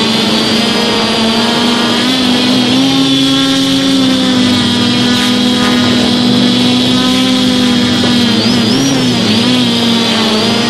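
DJI F450 quadcopter's four brushless motors and propellers humming loudly, heard close up from the phone on board. The pitch steps up slightly about two seconds in and wavers near nine seconds as the throttle is adjusted.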